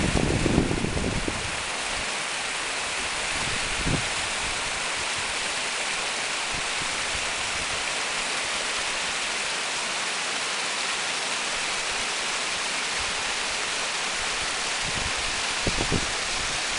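Small waterfall on a mountain stream, water rushing and splashing steadily over rocks. A few low thumps come near the start, at about four seconds and near the end.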